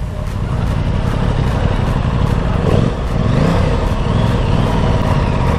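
Aprilia Tuono 660's parallel-twin engine running as the motorcycle rolls off at low speed, its pitch rising and falling gently about halfway through, over a steady low rumble on the helmet camera.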